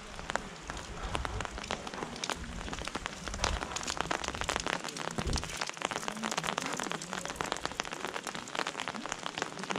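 Gentle rain falling on an umbrella held overhead: dense, close taps of drops over a steady hiss of rain, with a low rumble through the first half.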